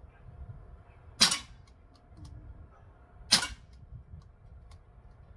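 Daisy Powerline 415 CO2 BB pistol firing twice, about two seconds apart: each shot a sharp pop with a brief tail.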